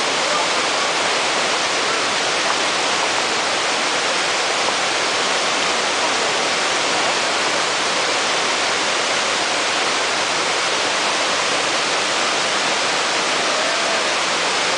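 Steady rush of a small waterfall on a mountain stream, an even, unbroken hiss of falling water.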